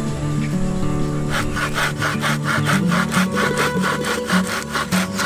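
Hand saw cutting through a small log of firewood, starting about a second in, in rapid, even back-and-forth strokes.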